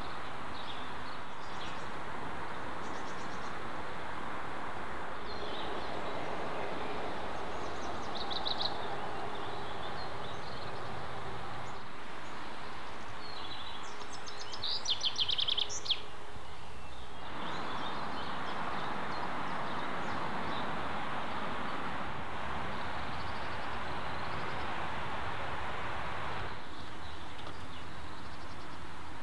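Steady background noise with no engine passing, broken by a couple of bird chirps about eight seconds in and a quick bird trill around fifteen seconds.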